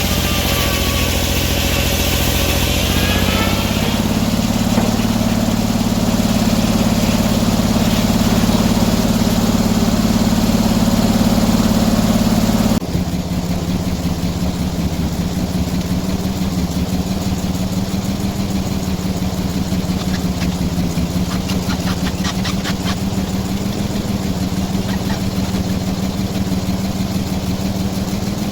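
Sawmill engine running steadily while the mill saws a log. About thirteen seconds in the sound drops abruptly, and the engine keeps running more quietly after that.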